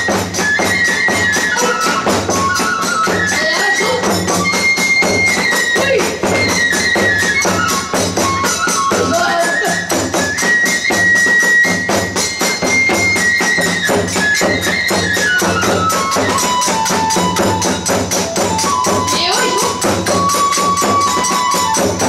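Hiroshima kagura music played at a fast tempo. A bamboo fue flute holds long notes that step down and back up, over a steady beat of the large ōdō barrel drum, the small drum and clashing tebyōshi hand cymbals.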